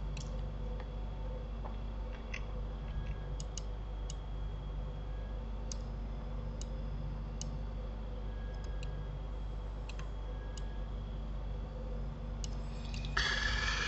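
Scattered single computer mouse clicks, a few seconds apart and sometimes in quick pairs, over a steady low electrical hum. Near the end a louder rushing noise starts.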